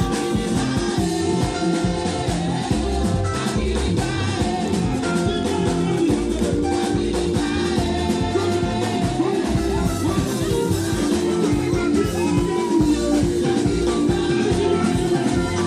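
Live gospel song played on an amplified stage: a choir of several singers on microphones, backed by a band with keyboard and drums, in a steady ongoing groove.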